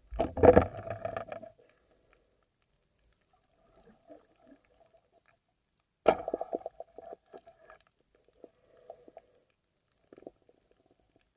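Muffled underwater sounds picked up through a camera's waterproof housing: a burst of bubbling and crackling in the first second or so, then scattered faint clicks, then a sharp knock about six seconds in followed by more crackling.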